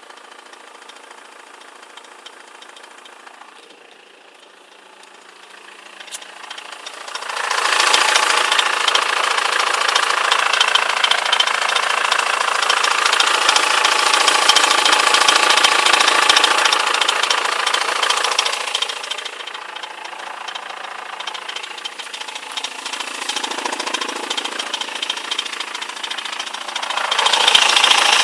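BMW M47 four-cylinder diesel engine running with a dense, fast clatter. This is the strange noise the owner is trying to capture. It grows much louder about seven seconds in, eases off after about eighteen seconds, and swells again near the end.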